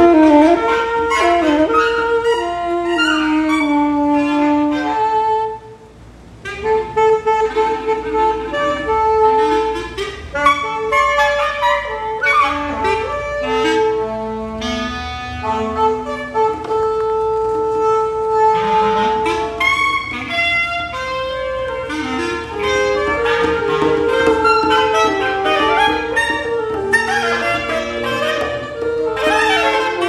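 Live ensemble music led by saxophones, with long held notes and quick runs layered over one another. The playing drops out briefly about six seconds in, then resumes.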